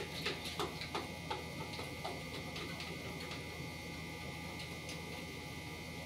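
Light, irregular clicks and taps of a plastic Color Reveal Barbie tube being handled at the sink, thickest in the first second or so and sparser after. Under them run a steady faint high-pitched whine and a low hum.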